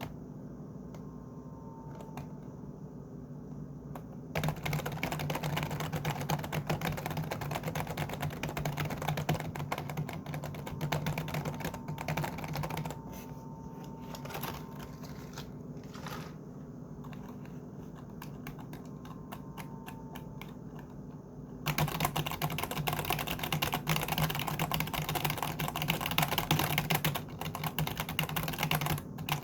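Computer keyboard being typed on: a dense run of rapid key clicks starting about four seconds in, thinning to scattered keystrokes midway, then fast continuous typing again for the last several seconds.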